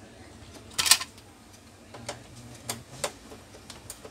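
Irregular clicks and small knocks from handling the plastic parts of an Epson L1300 inkjet printer during disassembly. A louder rattle comes about a second in, followed by a few single clicks.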